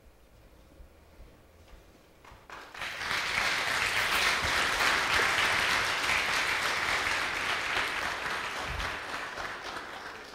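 Congregation applauding: the clapping starts about three seconds in after a quiet opening and tails off near the end.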